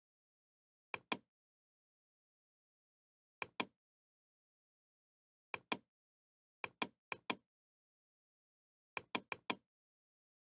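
Computer mouse button clicking: seven quick paired clicks spread irregularly, several bunched together near the end, with dead silence between.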